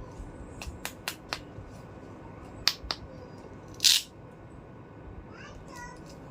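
Small plastic toy kitchen pieces clicking and tapping as they are handled: about six sharp clicks in the first three seconds, then one louder, short rasping burst a little before the middle.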